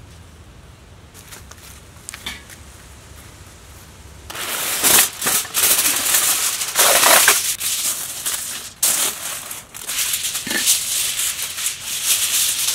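Aluminium foil being pulled off its roll and spread out, crinkling loudly in irregular crackling stretches. It starts about four seconds in, after a quiet start.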